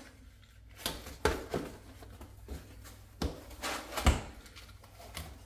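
Small white plastic parts being lifted out of packaging and set down: a few sharp knocks and clicks, the loudest about four seconds in, with light rustling between them.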